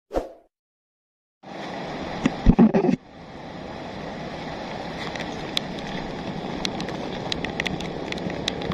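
A short whoosh from the intro graphic, then the steady rush of rain and a rain-fed flood in an ash-laden volcanic river channel. About a second after it begins there are a few loud wind or handling thumps on the microphone, and scattered sharp ticks follow.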